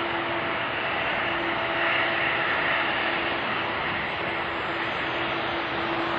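Jet engines of a Boeing 787-8 running at low taxi power as the airliner rolls by close at hand: a steady rushing noise with a steady low hum through it, swelling slightly about two seconds in.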